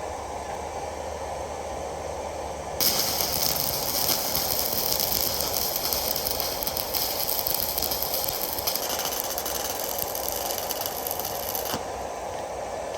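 Stick-welding arc from a Fitinhot handheld welder burning a 7014 rod: the arc strikes about three seconds in, crackles and hisses steadily for about nine seconds, then cuts off. A steady low hum runs underneath.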